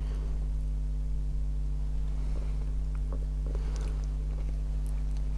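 Steady low hum, with a few faint clicks and rustles from hands turning a small rubber RC tire on its plastic rim and handling a glue bottle.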